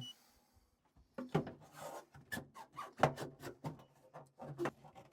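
A string of sharp clicks, knocks and rubbing as parts are handled and refitted inside a combi boiler.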